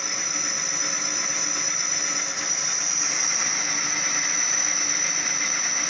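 Metal lathe taking a light 0.2 mm facing cut across a spinning flywheel's clutch face: a steady machining sound with a thin high whine held all through.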